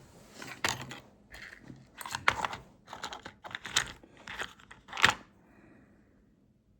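Small metal lighter parts being handled and fitted together on a work surface: a run of irregular clicks and short scrapes that stops about five seconds in.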